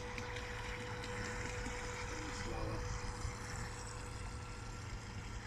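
Small electric RC kit boat running on a 2S LiPo: a steady motor whine at one unchanging pitch over wind noise on the microphone.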